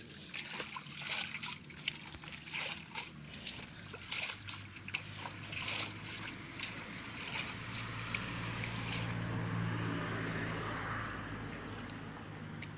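Water splashing, sloshing and dripping as a mesh colander is dipped and lifted in a large basin of water, in many small irregular splashes. Partway through, a steady low engine-like hum comes up underneath.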